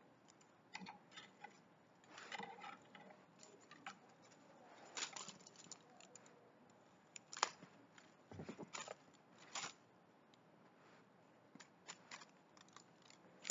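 Faint, scattered rustles and light ticks of a kitten batting at a fluffy toy dangled on a string, with one sharper tick about seven seconds in.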